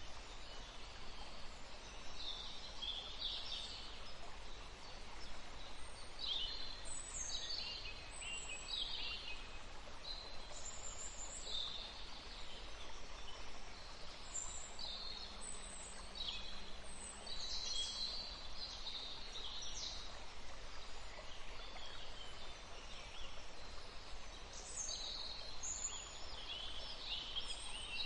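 Several small birds chirping and singing in short, quick phrases, one after another and sometimes overlapping, over a steady low background hiss.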